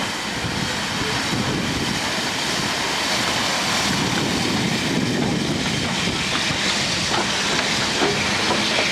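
BR Standard Class 4 2-6-0 steam locomotive 76084 running slowly past along the platform: a steady hiss of steam with the clatter of its wheels on the rails. It grows a little louder as it draws alongside.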